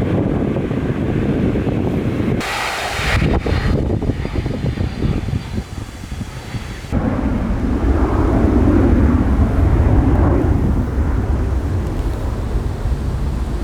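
Jet airliner engines rumbling, with wind buffeting the microphone; the sound changes abruptly twice, about two and a half seconds and seven seconds in.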